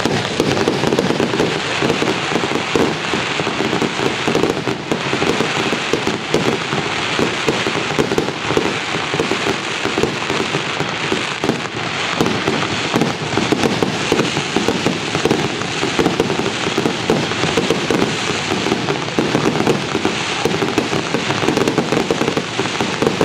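Fireworks display: a dense, continuous barrage of bangs and crackling with no let-up.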